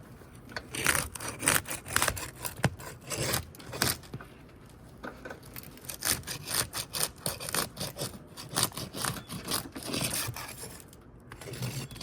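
A roofing tool scraping and prying under old, brittle shingle tabs to pop their tar seal, in irregular flurries of short, sharp scrapes and cracks with a lull about halfway.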